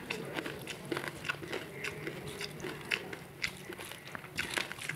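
Close-miked eating sounds: wet mouth clicks of chewing, with fingers squishing and mixing rice on a steel plate, in many short irregular clicks.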